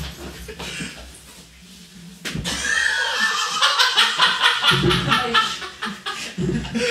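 A single sharp knock about two seconds in, then a group of people bursting into loud, rapid laughter and shouting together.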